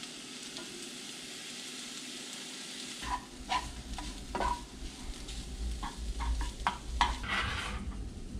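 Fried rice sizzling in a hot skillet while a spatula stirs it, steady for the first three seconds. After that come a run of sharp scrapes and knocks of the spatula against the pan, over a low rumble.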